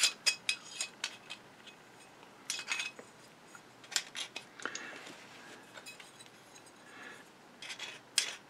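A metal tool scraping and clinking inside the housing of a Singer 201-2 potted sewing-machine motor, in irregular light clicks and short scrapes, as thick old grease is dug out of it.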